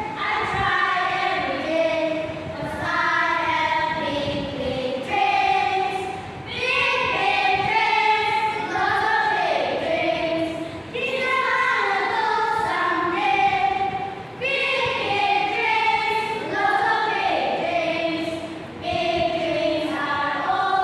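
A group of children singing together as a choir, in phrases of a few seconds with short pauses between lines.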